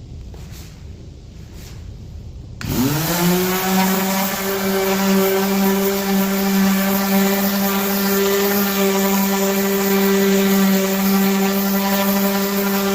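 Electric motor of a floor sanding machine starting, its pitch rising for about a second as it spins up, then running at a steady hum. Before it starts there are a few seconds of fainter, quieter noise.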